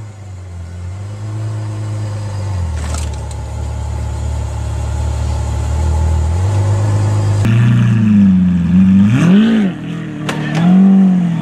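Ferrari F12's V12 idling steadily, then, about seven seconds in, a Lamborghini Aventador's V12 revved in two short throttle blips that rise and fall.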